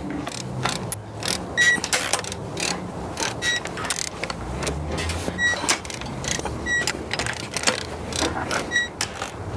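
Torque wrench ratcheting and clicking on the cylinder-head stud nuts of an AMG M156 6.2-litre V8 as they are pulled to 110 newton-metres, the second stage of a three-stage torque sequence. About five short, high beeps sound through it, one every second or two.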